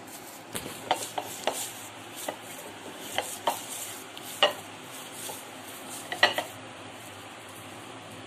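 Hands pressing and working a stiff jaggery dough on a cut-glass plate: soft rubbing with scattered sharp clinks and knocks of the glass plate, the last and loudest a quick cluster about six seconds in.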